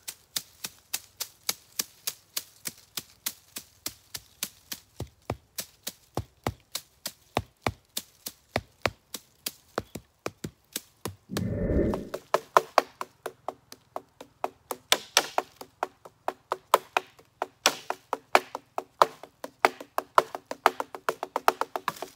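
Two wooden sticks drumming on a tree stump in a steady stick-by-stick rhythm, about four strokes a second. About halfway through comes a short noisy burst, and then the sticks drum faster on fallen branches and logs lying on the forest floor, the strikes carrying a low ringing tone.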